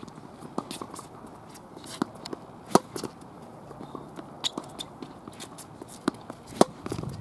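Tennis ball struck by rackets in a baseline rally on a hard court: two sharp close hits, about four seconds apart, in the middle and near the end, with fainter hits and ball bounces from the far end between them. Footsteps on the court surface run beneath.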